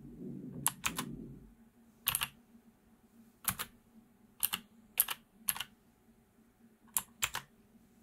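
Clicky mechanical switches on a Thunderobot KC3068 keyboard being pressed one key at a time: about eight separate presses, most giving a sharp double click, with pauses between them, as keys are pressed to change the backlight effect. A low rumble in the first second and a half.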